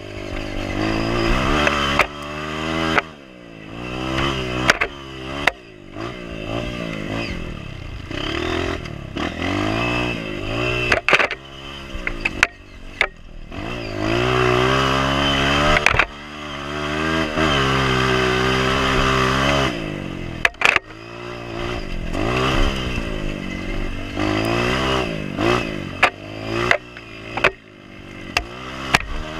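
Honda CRF230F trail bike's single-cylinder four-stroke engine revving up and down again and again under load on an uphill dirt trail, with short drops off the throttle. Sharp knocks from the rough ground come in now and then.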